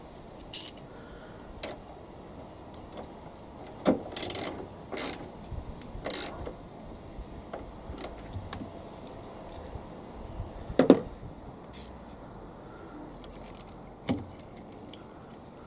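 Scattered metal clinks, clicks and knocks of a socket ratchet and the battery hold-down clamp being worked, with one louder knock a little past the middle. Near the end comes another knock as the positive terminal clamp is handled at its post.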